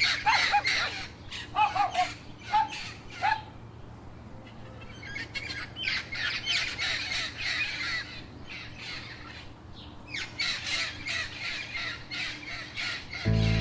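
A flock of birds calling: a run of short calls that dip in pitch over the first few seconds, then a dense, noisy chatter of many birds together.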